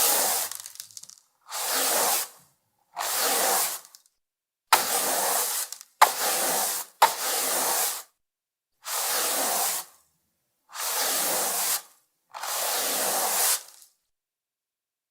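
Flat microfibre mop pushed over a parquet floor: about nine separate swishing strokes, each about a second long, with short pauses between. Sharp clicks come at the start of three strokes near the middle.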